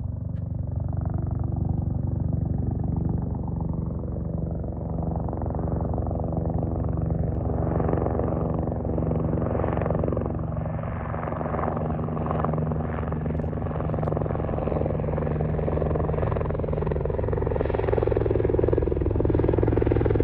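Off-road race vehicle engines: a steady low drone throughout, with engine noise swelling and falling away several times in the middle and getting louder near the end.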